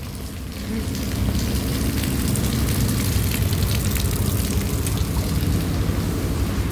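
Rain falling with a motor vehicle's engine running close by. The engine's low rumble builds about a second in and then holds steady.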